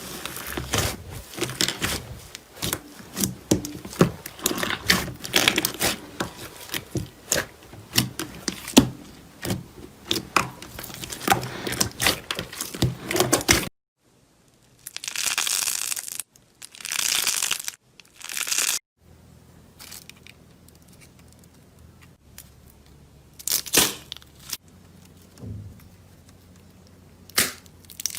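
Slime being squeezed and poked: dense sticky crackling and popping clicks for about fourteen seconds. Then, after an abrupt cut, three hissing tearing sounds as it is pulled and stretched, followed by a quieter stretch with a few sharp clicks.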